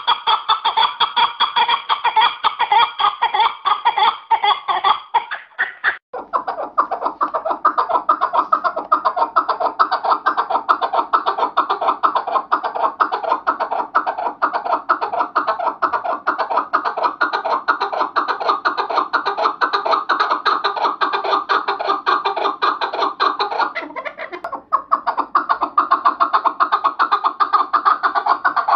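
Chukar partridge calling: a fast, continuous run of repeated chuk notes. The calling breaks off abruptly about six seconds in and again near 24 seconds, then resumes.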